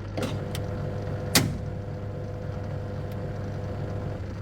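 LG top-loading washing machine's drain motor running during spin over a steady hum, with a sharp click as its tone starts, a loud clack about a second later, and the tone stopping near the end. The drain motor is catching and suddenly releasing: its internal gears are worn and it is failing.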